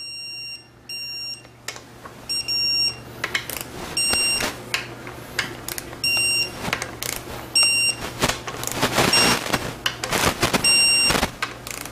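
Electronic torque wrench beeping again and again, a short beep about every second and a half, as each valve body bolt reaches its set torque. The wrench's ratchet clicks between the beeps.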